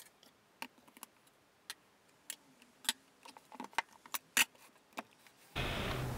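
Light clicks and knocks of a Vitamix blender's plastic container and other kitchen items being handled and set down on a counter. Near the end a steady noise starts suddenly.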